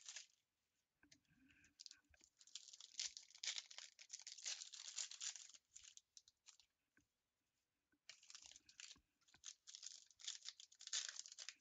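Plastic wrapping on Panini Mosaic football card boxes and packs being torn open and crinkled by hand, in irregular stretches with short pauses between.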